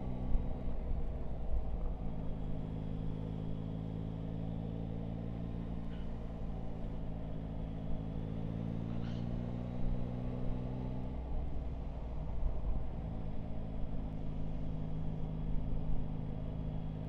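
Yamaha Tracer 9 GT's three-cylinder engine running steadily at low road speed, with wind and road rumble on the microphone. The engine note drops away about eleven seconds in and picks up again a couple of seconds later.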